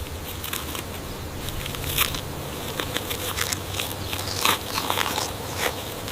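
Irregular crackling and crunching: a string of short sharp clicks at uneven intervals, over a low steady hum.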